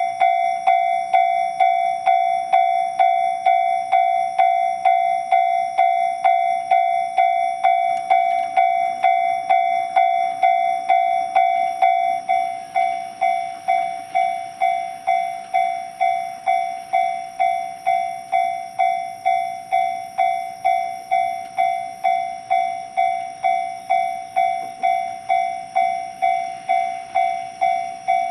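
Japanese railway level-crossing alarm bell ringing steadily at about two strikes a second, the warning that a train is approaching. About twelve seconds in, the ringing changes tone.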